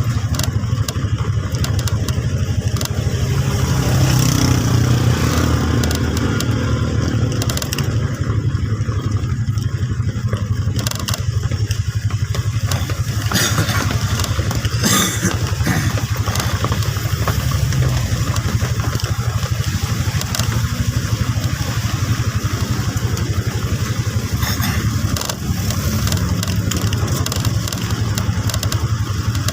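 An engine running steadily as a low drone, with a few brief rattles about halfway through.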